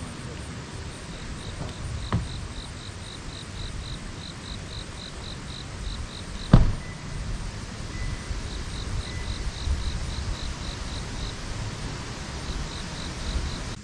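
An insect chirping in a steady high-pitched pulse, about three or four chirps a second, falling silent for a couple of seconds after the middle and then starting again, over a steady outdoor hiss. A single sharp click about halfway through is the loudest sound, and there is a fainter click about two seconds in.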